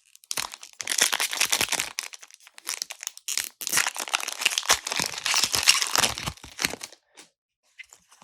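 Foil wrapper of a Pokémon TCG Shining Fates booster pack crinkling and being torn open, a dense stretch of crackling that stops about seven seconds in.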